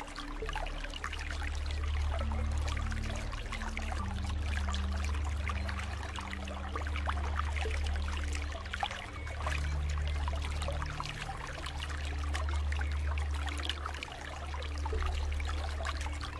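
Steady trickling and splashing water from a pool soundscape, with low held tones of soft background music that change pitch every few seconds underneath.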